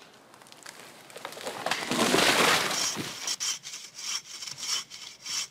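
Logging in a snowy forest: a loud rushing crack of breaking wood about two seconds in, ending in a thump, then a saw cutting timber in steady rasping strokes, about two or three a second.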